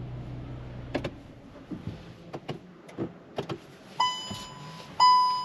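Kia Rio's 1.0 T-GDI three-cylinder petrol engine idling with a low steady hum, switched off about a second in. A few sharp clicks follow, then from about four seconds in a dashboard warning chime sounds once a second as the ignition comes back on with the engine stopped.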